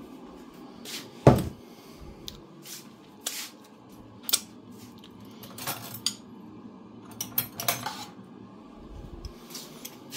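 Dishes and cutlery being handled: scattered clinks and knocks of crockery and metal, the loudest a sharp knock about a second in, with a cluster of clinks near the end as a spoon is picked up.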